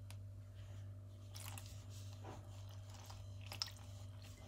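Faint gritty rustling of a hand rubbing oil into flour in a bowl, a few soft scrapes, over a steady low hum.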